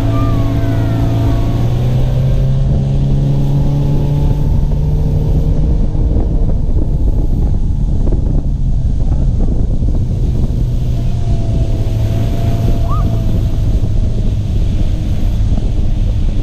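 Fishing boat's outboard motor running steadily while underway, with wind rushing over the microphone. The engine's pitch rises about two seconds in and settles lower again around six seconds.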